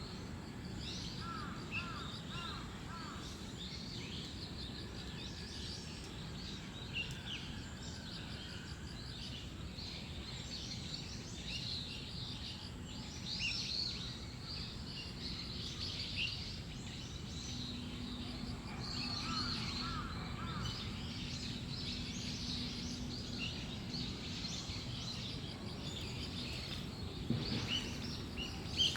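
Several small songbirds chirping and calling in short, high notes, with a couple of quick runs of repeated lower notes, over a steady low rumble of distant background noise.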